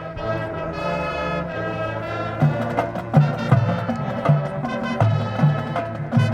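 Marching band playing: the brass section holds sustained chords, then about two and a half seconds in, low drum hits and accented bass notes join in a steady pulse of roughly two a second.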